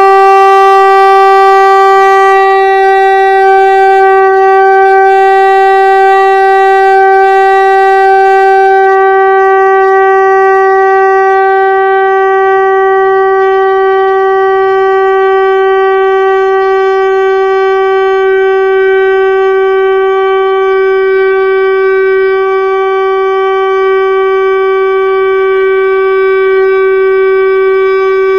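Shankh (conch shell) blown softly in one long unbroken note, holding a steady pitch, to make the breath last as long as possible. The tone grows a little mellower and softer after about nine seconds.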